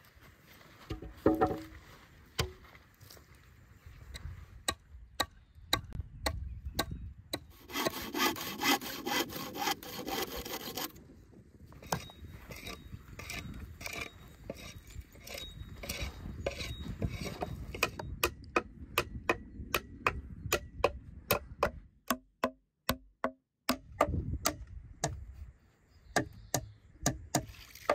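Gloved hands scraping and rubbing in loose soil while digging a planting hole and setting a seedling. In the second half, a hammer strikes wood in a long run of sharp knocks, about two or three a second.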